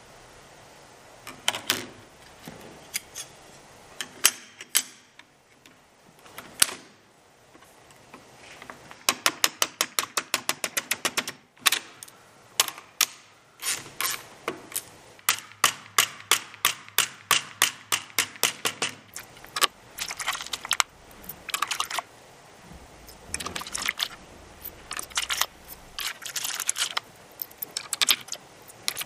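Hand tools and small metal parts clicking and clinking during final assembly of homebuilt helicopter main rotor blades. The clicks are sharp and scattered, with a fast even run of about eight a second about a third of the way in.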